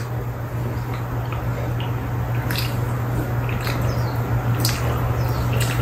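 Quiet mealtime sounds: chopsticks picking at grilled salted mackerel and tapping against dishes, with a few faint clicks, over a steady low hum.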